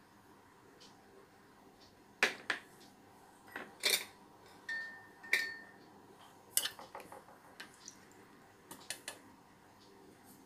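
Scattered clinks and taps of kitchen utensils against a stainless-steel mixer-grinder jar as ghee and vanilla essence are added, with one brief ringing note about halfway through.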